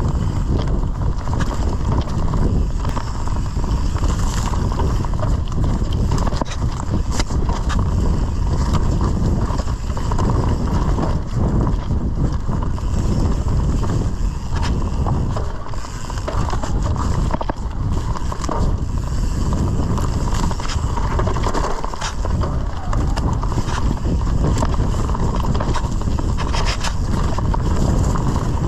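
Santa Cruz Bullit electric mountain bike descending a dirt trail: continuous rumble of the tyres over dirt and roots, with frequent clatter and knocks from the bike's frame and chain over the bumps.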